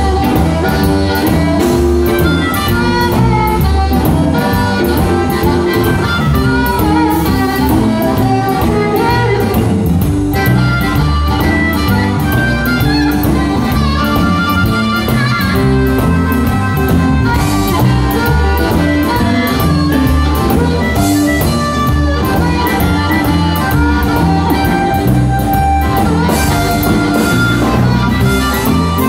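Live blues band: an amplified blues harmonica, cupped together with a handheld microphone, plays long held and bent notes over drums and electric guitar.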